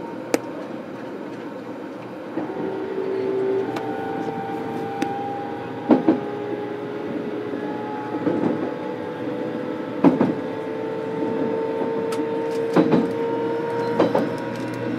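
JR Kyushu 813-100 series electric train heard from inside its motor car: about two and a half seconds in, a steady whine of several tones starts as the traction motors take power, rising slowly in pitch as the train picks up speed. A few sharp knocks from the wheels and track come through over the running noise.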